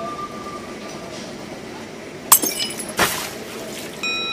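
Sound effects of an animated subscribe-button overlay: a sharp click a little over two seconds in, a second click about a second later, then a ringing notification chime near the end.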